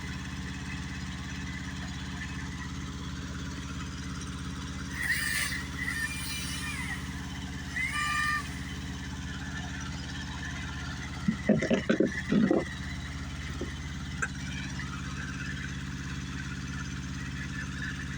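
An engine running steadily at an even low speed. Brief higher-pitched sounds come over it about five to eight seconds in, and a short louder cluster of sounds about eleven to twelve seconds in.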